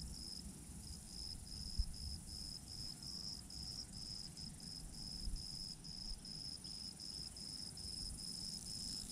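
Insects chirping: a high chirp repeating evenly about three to four times a second over a steady high hiss of other insects, with a low rumble underneath and a single short knock about two seconds in.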